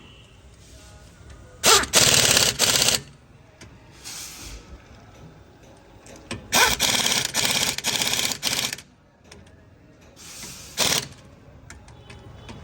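Pneumatic impact wrench rattling on wheel nuts in four bursts of one to two seconds each, the longest around the middle.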